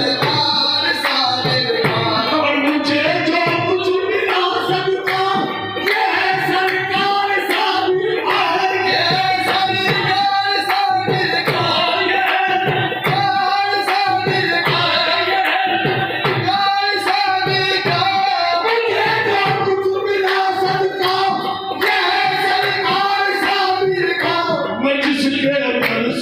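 Qawwali: voices singing long held, ornamented lines over tabla and rhythmic handclaps.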